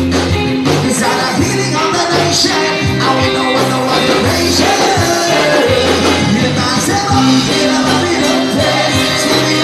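Band music with a lead singer over bass, guitar and drums, playing steadily at full level.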